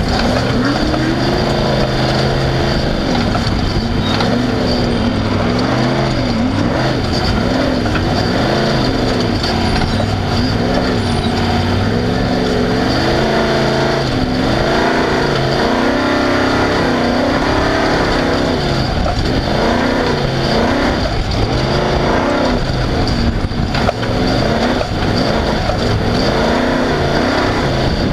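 Off-road race car's engine running loud, its pitch rising and falling every second or two as the throttle is worked over rough ground.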